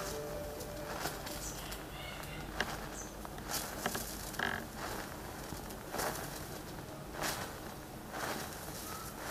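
Row of safety match heads catching fire one after another, each flaring with a short fizzing hiss every half-second to second or so. Faint bird chirps in the background.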